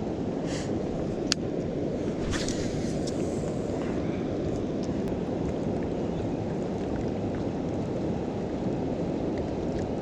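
Steady rushing of river water pouring over a spillway, even in level throughout, with a single sharp click just over a second in.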